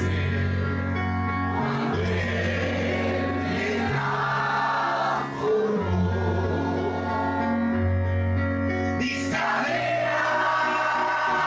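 A crowd of men and women singing together, with long held low notes beneath the voices that change every second or two.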